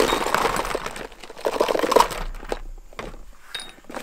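Plastic bags crinkling and small tools and items clattering as a packed plastic container is emptied onto a table. It is busy for about the first two seconds, then only a few separate clicks.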